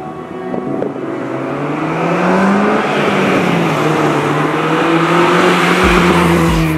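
2005 Honda Civic Si (EP3) with its 2.0-litre four-cylinder driving up and past, its engine and tyre noise growing louder as it nears and loudest about six seconds in.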